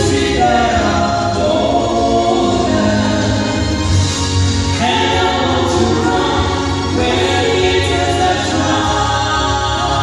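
Mixed vocal trio of one man and two women singing a gospel song in harmony into handheld microphones, with a steady low accompaniment underneath.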